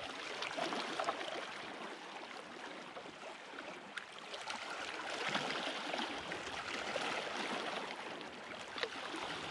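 Bay water lapping against the concrete shoreline blocks: a steady wash of small waves that swells a little about five seconds in.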